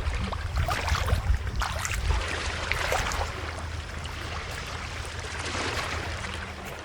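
Sea water washing and splashing, a continuous crackling rush with a steady low rumble underneath.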